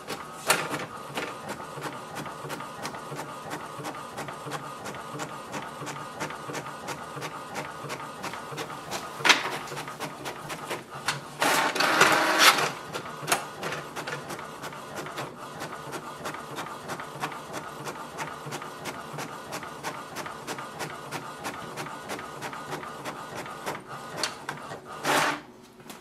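HP DeskJet 3755 inkjet printer printing: the print-head carriage shuttles back and forth with a steady mechanical whir and rapid ticking. Louder whirring rushes from the paper feed come about nine seconds in, for about a second and a half around twelve seconds, and briefly near the end.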